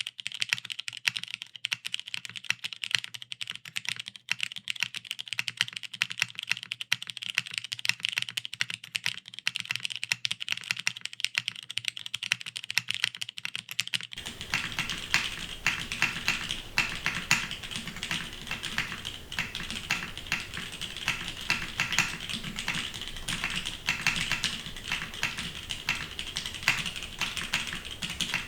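Continuous fast typing on a TGR Jane V2 ME custom mechanical keyboard: lubed vintage Cherry MX Brown switches on an FR4 half plate, top mount, no foam, with DCS keycaps. The keystrokes come as a dense stream of clicks. About halfway through, the sound turns fuller, with more low end.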